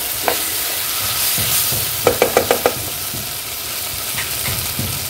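Vegetables and ketchup sizzling in a hot kadhai while a spatula stirs them, with a quick run of about five knocks of the spatula against the pan about two seconds in.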